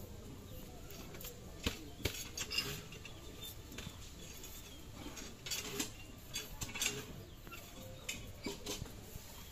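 Knife peeling a raw potato by hand: the blade scrapes and clicks as it slices off strips of peel, in short clusters of strokes about two seconds in, again around five to seven seconds, and near the end.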